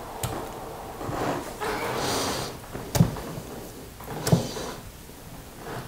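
Handling of fish fillets on a wooden cutting board: two short soft knocks, about three and four and a half seconds in, with a breathy sniff before them.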